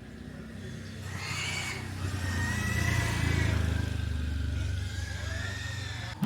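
A motor vehicle passing close by: its engine sound builds to a peak about three seconds in and then eases off, with a thin high whine over it. The sound changes abruptly near the end.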